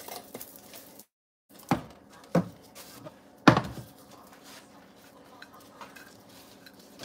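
Three sharp knocks of kitchen dishes being handled while a sandwich is put together, the last and loudest about three and a half seconds in. The sound cuts out completely for a moment about a second in.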